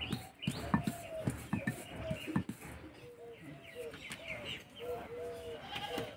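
Birds calling in short, repeated arching notes, with sharp knocks of a wooden rolling pin on a stone rolling board in the first couple of seconds.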